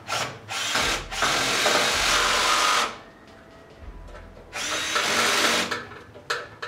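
A motorised power tool runs in two bursts, about two seconds and then about one second, followed by a run of light clicks.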